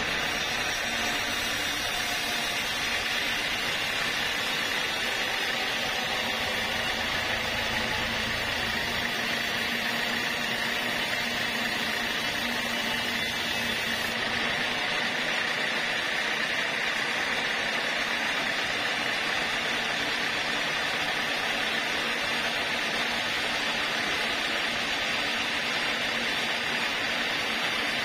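Band sawmill running, its blade cutting lengthwise through a large log of Javanese red wood (kayu merah jawa): a steady, even hiss of blade and wood.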